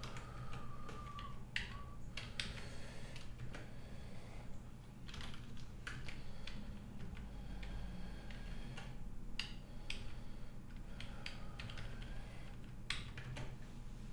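Typing on a computer keyboard: irregular keystrokes in short scattered runs, over a low steady hum.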